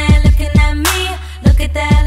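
Hip-hop background music with deep bass drum hits on a steady beat and held melodic tones.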